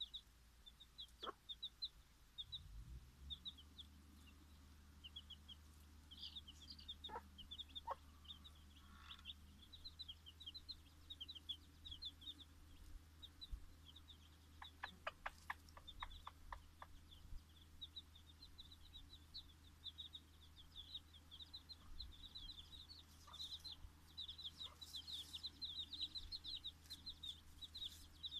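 Bantam chicks peeping continuously in short, high cheeps, busiest near the end. About halfway through, the Dutch bantam hen gives a quick run of about eight clucks.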